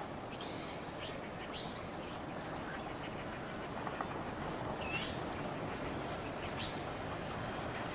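Scattered short bird calls, a few brief chirps several seconds apart, over a steady outdoor background noise.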